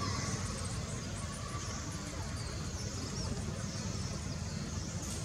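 Steady outdoor background noise: a low rumble under a high hiss, with no distinct sound standing out.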